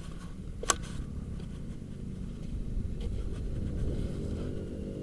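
An engine running steadily, its pitch rising slightly about halfway through, with one sharp click early in the sound.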